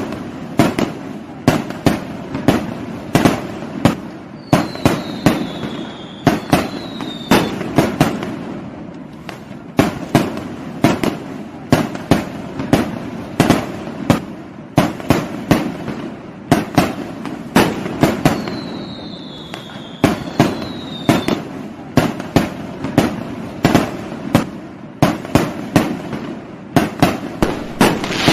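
Fireworks: a dense, irregular barrage of sharp bangs and pops over a continuous low rumble. Twice, a pair of falling whistles cuts through the bangs.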